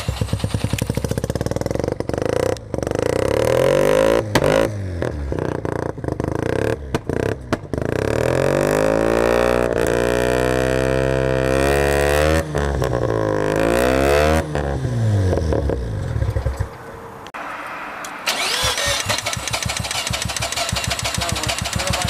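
Mazda RX-7 rotary engine catching and running unevenly during a start attempt. It cuts out briefly several times in the first eight seconds, then revs up and down and dies about 16 seconds in. A couple of seconds later a rapid, even clatter follows. The owner can't tell why the car won't start properly.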